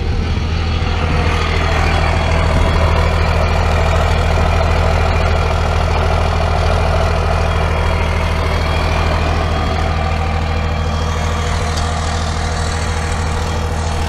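2001 Dodge Ram 2500's 5.9-litre Cummins turbo-diesel idling steadily through a straight-piped 4-inch MBRP side-dump exhaust, heard close to the outlet.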